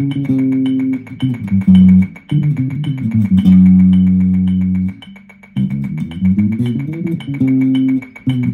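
Electric bass guitar playing a repeated riff of short plucked notes, with one long held note in the middle, a brief break just after it, and the riff starting over.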